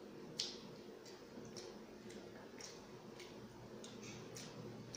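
Fingers mixing biryani rice on a glass plate: light clicks against the glass roughly twice a second, with one louder click shortly after the start.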